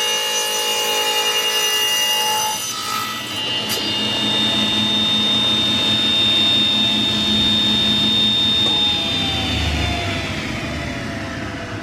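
Vintage Delta Unisaw table saw running, cutting wood for the first couple of seconds and then spinning free with a steady whine. About nine seconds in it is switched off, and its pitch falls as the blade coasts down.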